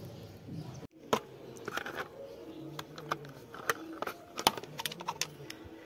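Scattered sharp clicks and knocks of hands working a motorcycle's speedometer cable and its metal fittings, some seven or eight separate taps over a few seconds.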